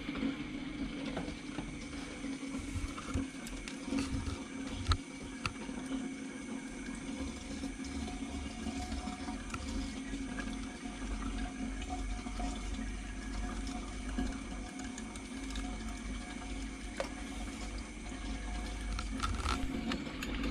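Steady running, trickling water from an aquarium's water circulation, over a low steady hum, with a few faint clicks.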